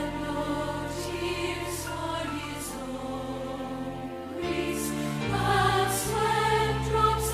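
Congregation singing a hymn together over held accompaniment chords, the bass note changing several times in the second half.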